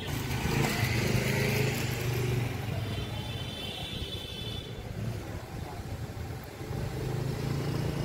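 A motor vehicle engine running with a steady low hum, over street noise. The hum is strongest for the first couple of seconds and again near the end.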